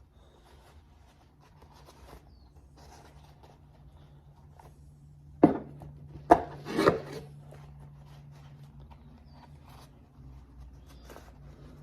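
Hands working the shift boot and its plastic trim and retainer: faint rubbing and rustling, with two sharp knocks near the middle followed by a short, louder scrape.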